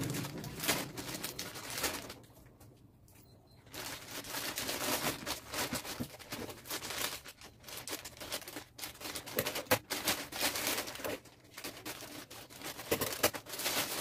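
Plastic courier mailer bag crinkling and tearing as it is pulled open by hand, in a run of irregular crackles with a brief pause about two seconds in.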